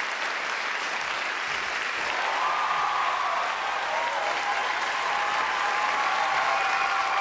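Live studio audience applauding, with cheering voices joining in about two seconds in.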